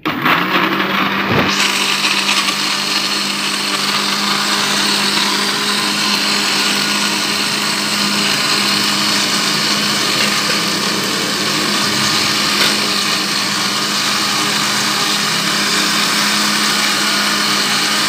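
Philips countertop blender switched on and running steadily at full speed, its motor humming as it purées garlic, chillies, tamarind and palm sugar into a sauce.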